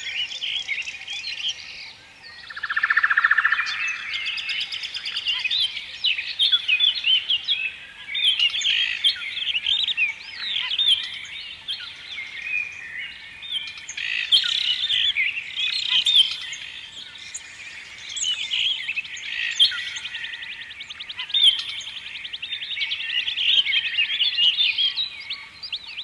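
Small birds chirping and twittering without a break, many short quick calls overlapping, with a harsher buzzy call about three seconds in.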